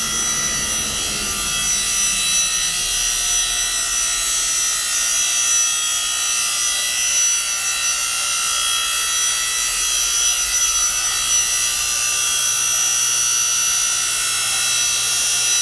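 Electric motor and hydraulic pump of a 3 HP, 7-ton hydraulic log splitter running steadily with an even high whine.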